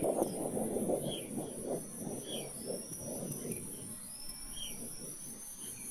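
Outdoor field ambience: a low rumble of wind, short high chirps from a small bird every second or so, and a steady high-pitched hiss.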